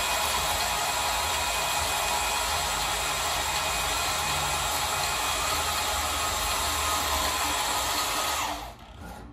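Milwaukee M18 Fuel cordless deep-cut band saw running at speed setting 3, its blade cutting through aluminum bar stock held in a vise, with a steady sound; the saw stops about a second before the end.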